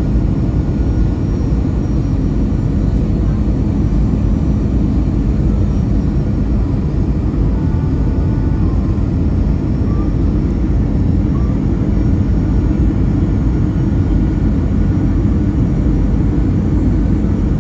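Airbus A320 on final approach heard from inside the cabin: a steady low rumble of jet engines and airflow.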